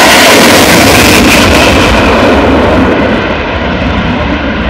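Eurofighter Typhoon fighter jet passing close by, its two EJ200 turbofan engines very loud at first, then the sound dulls and fades from about three seconds in as the jet pulls away.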